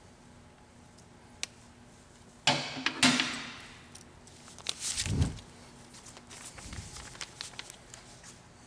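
A few loud clunks and a rattling knock, with scattered light clicks: handling noises around the machine. A sharp click comes about a second and a half in, a loud clatter around two and a half to three seconds in, a heavy thump about five seconds in, then a run of light clicks.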